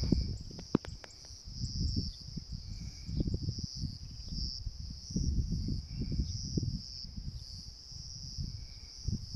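A steady, high-pitched insect chorus that swells and fades every second or so, over an irregular low rumbling.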